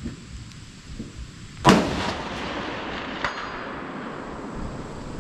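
A single rifle shot about a second and a half in, cracking loudly and echoing across the range. About a second and a half later there is a short metallic ring, typical of the bullet striking a steel target.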